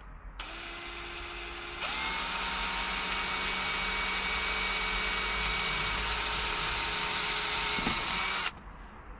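Cordless drill running a 3 mm bit for a pilot hole: it starts at low speed, steps up to full speed about two seconds in, holds a steady whine for about six seconds, then stops abruptly.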